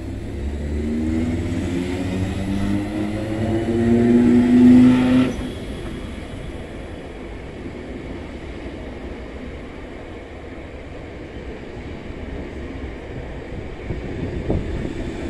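Class 317 electric multiple unit accelerating away, its traction motors whining with a rising pitch that grows loudest and then cuts off suddenly about five seconds in. The train then rolls on with a steady rumble, with a single knock near the end.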